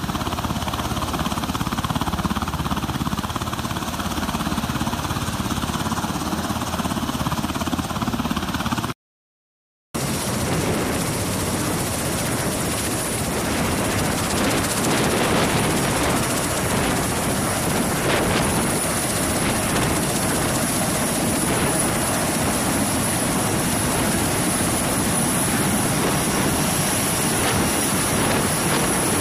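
Steady aircraft rotor and engine noise, broken by about a second of silence at an edit nine seconds in. After the break, an MV-22 Osprey tiltrotor runs on the ground with its proprotors turning. A steady high turbine whine sits over the rotor noise.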